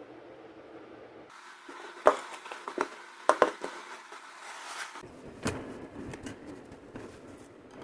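Hands working steel wire through cardboard: rustling with a handful of sharp clicks, most of them between about two and three and a half seconds in, and one more near five and a half seconds.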